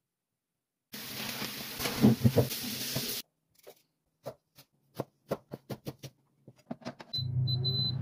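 A couple of seconds of rustling noise with a few thumps, then a kitchen knife chopping sweet potato on a plastic cutting board in a dozen or so sharp taps that come faster toward the end. Near the end an air fryer's touch panel beeps several times and its fan starts running with a steady hum.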